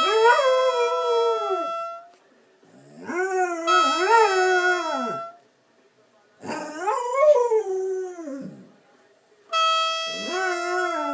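A golden Labrador howling along with a horn. A steady horn tone sounds three times: at the start, about four seconds in, and near the end. The dog answers each with a long howl that rises and falls in pitch, and gives a fourth howl on its own about seven seconds in.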